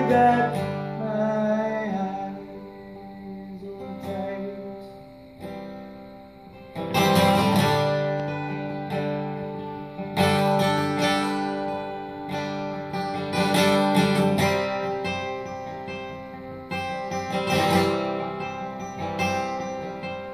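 Acoustic guitar playing an instrumental break between sung lines: strummed chords left to ring, with a hard strum about every three to four seconds.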